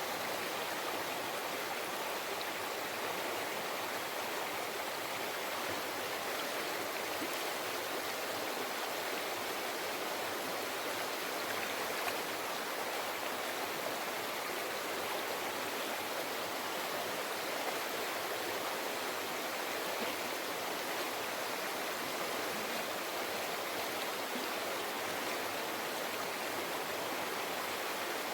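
Mountain river flowing over rocks: a steady, even rush of water with no let-up.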